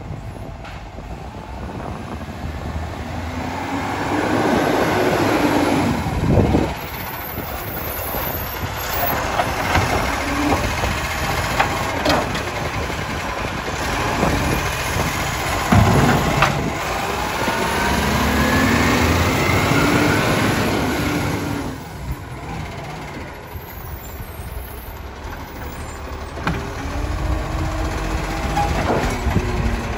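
Side-loading garbage truck's diesel engine running and revving as its hydraulic arm lifts a wheelie bin, tips it into the hopper and lowers it, with rising and falling whines from the hydraulics. Sharp clanks from the bin and arm about six and a half and sixteen seconds in.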